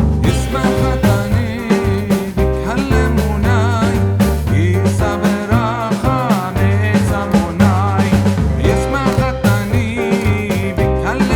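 Background music with a steady beat, bass and a wavering melody line.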